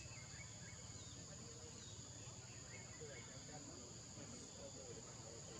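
Faint forest background: a steady high-pitched insect drone over a low, even rumble.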